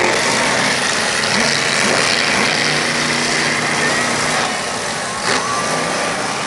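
Several monster truck engines running at once, a loud steady din of engine noise.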